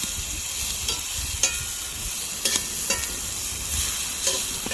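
Burger patties and onions sizzling in a frying pan, a steady hiss, with a utensil clicking and scraping against the pan every second or so as the food is stirred.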